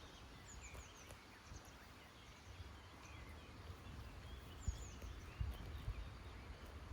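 Faint farmyard ambience: small birds chirping in short, high calls, over a low rumble with a few soft thumps near the end.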